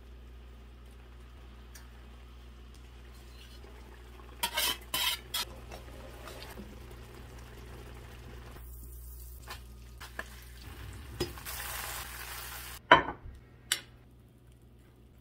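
Butter and shallots sizzling in a stainless steel skillet, with a utensil clinking and scraping against the pan as fish fillets are laid in. Near the end two sharp clacks as a metal ramekin is set down on a ceramic plate.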